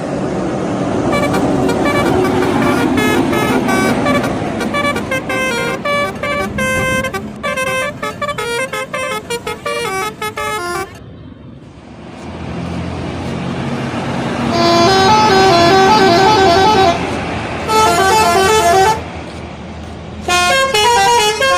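Indonesian bus 'telolet' horns, sets of electric trumpet horns playing quick melodic runs of short notes that step up and down in pitch. The horns cut off abruptly about halfway through, leaving a low engine rumble, then start again with louder runs, break off briefly, and resume near the end.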